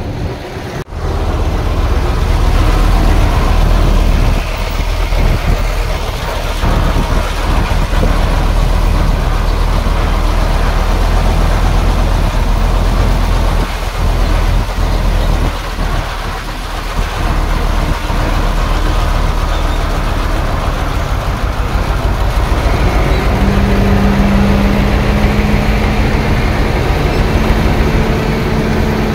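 Heavy diesel engine of earthmoving machinery running with a loud, steady low rumble that comes in suddenly about a second in. A steady humming tone joins over the last few seconds.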